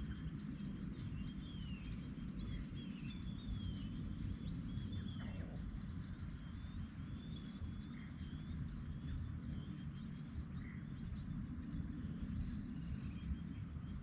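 Wild birds chirping and calling, many short notes scattered throughout, with one call sliding down in pitch about five seconds in, over a steady low background rumble.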